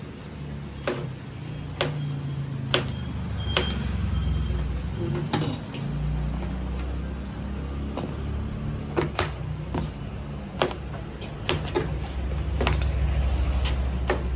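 Cleaver knives chopping through soft blocks onto wooden and plastic cutting boards: sharp, irregular knocks about once a second. A steady low rumble runs underneath and grows louder about halfway through.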